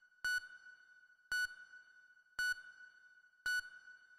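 Electronic countdown-timer beeps: four short, identical high beeps about a second apart, ticking off the seconds left to answer a quiz question.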